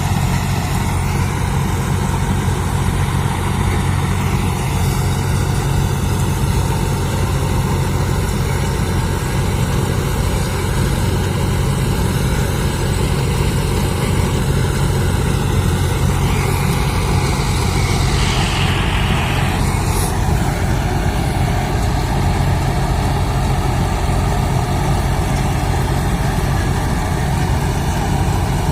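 John Deere 5310 combine harvester's diesel engine running steadily with a deep drone. A brief hiss rises over it about two-thirds of the way through.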